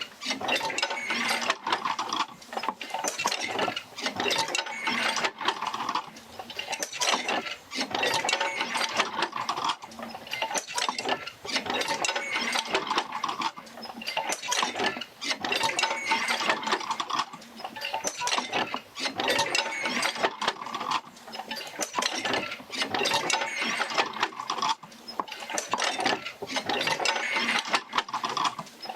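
An oil-field jerker-line field wheel driven by a Fitzgerald rig, working continuously with clanking and knocking that repeats in a cycle of roughly every two seconds.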